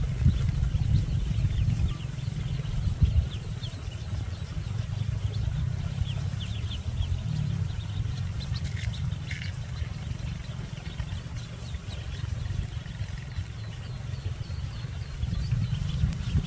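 Ducklings peeping: many short high chirps over a steady low rumble.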